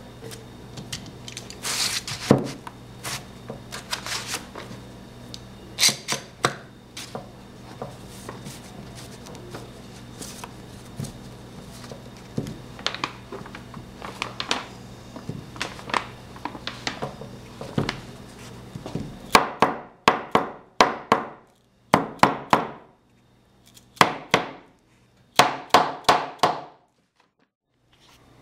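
Metal bar clamps clicking and knocking against wood as they are set and tightened on glued wooden strips, over a steady low hum. In the last several seconds the hum drops out and the clicks come in quick bunches.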